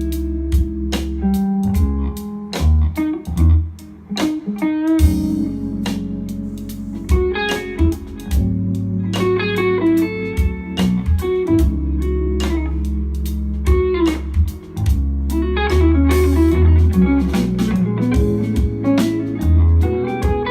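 Instrumental music with a guitar lead over bass and a steady beat, played back through a pair of Klipsch RP150M bookshelf speakers and picked up by a phone microphone in the room.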